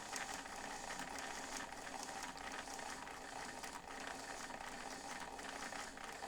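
1977 White Model 510 sewing machine running at a slow, steady pace while sewing a stretch stitch, with its feed working the fabric two steps forward and one step back. It makes a steady mechanical clatter with light ticking.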